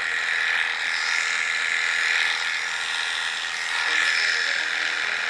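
Cordless electric pet clipper running steadily, trimming the fur around a cat's paw.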